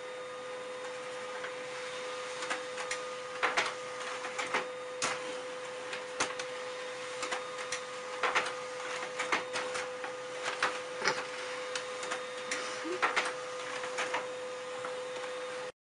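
Desktop printer running a print job: a steady hum with one constant tone, broken by many irregular clicks as the mechanism works.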